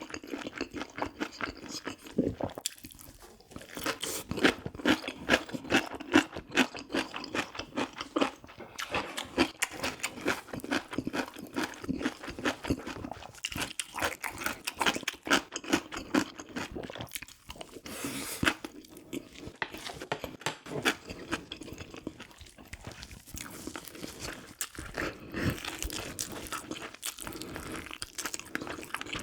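Close-miked chewing and crunching of soy-braised pig's trotters (jokbal) and kimchi, with a few short pauses between mouthfuls.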